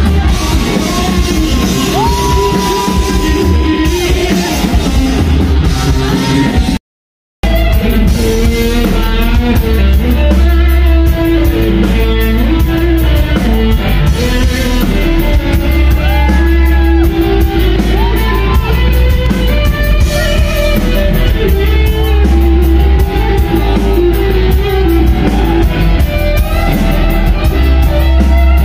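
Live rock band playing loud, with electric guitar and a drum kit and sliding, bent notes over the top. The sound cuts out completely for about half a second near a quarter of the way in, then the song carries on.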